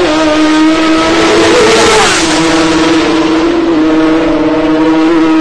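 Racing motorcycle engines at full throttle: one bike passes about two seconds in, its engine note dropping in pitch as it goes by, over a steady high engine drone.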